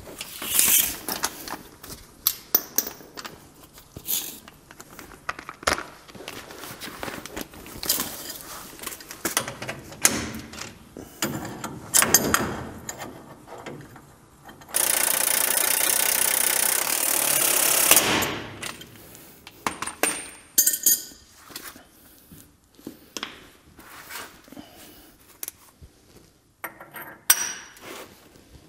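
Metal tools and suspension parts clinking and knocking as they are handled. About halfway through, a DeWalt cordless impact wrench hammers steadily for about three seconds, driving home the bolt that joins the I-beam to the radius arm. A few more sharp clanks follow.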